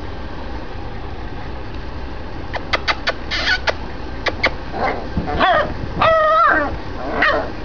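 Small fluffy puppies wrestling and calling: a few sharp clicks about halfway through, then a run of high-pitched whines and yips, the longest a held whine near the end and the last one falling in pitch.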